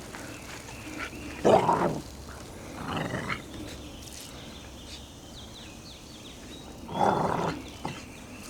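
A 16-week-old puppy giving three short growls in play, the first the loudest.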